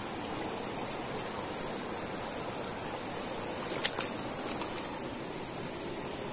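Mountain stream running steadily over rocks, with a few short sharp clicks about four seconds in.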